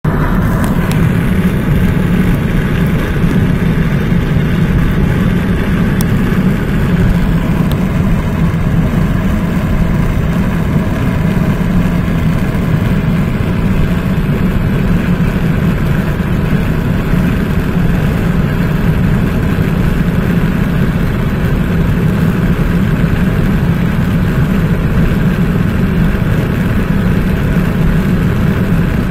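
Steady low drone of a car cruising at highway speed, heard from inside the cabin.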